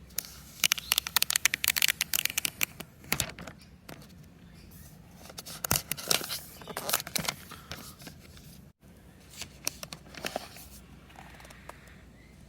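Packaging being handled during a laptop unboxing: crinkly wrapping crackling and tearing in two busy spells, with scattered light scrapes and ticks between.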